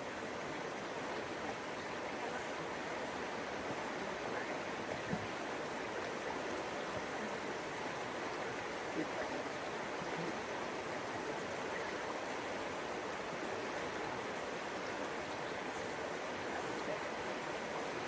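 Shallow mountain trout stream rushing steadily over rocks in a riffle.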